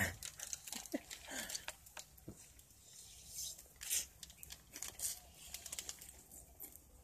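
Thin plastic drink bag crinkling and rustling in the hand, with short sucking sips as iced drink is drunk straight from the bag.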